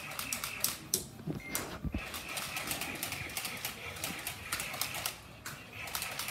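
Dense, irregular clicking and rustling from a handheld camera being swung about during play, with a dull thud about two seconds in.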